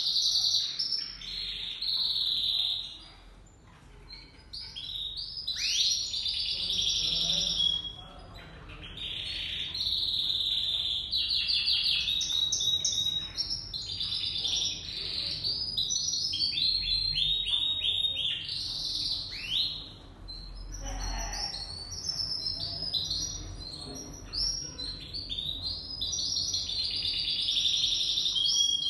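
Domestic canaries singing: long runs of fast trills and chirps, broken by a couple of short pauses.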